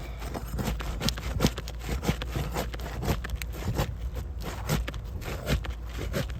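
Brittle roof shingles being pried and scraped up: a dense, irregular run of scrapes, cracks and clicks.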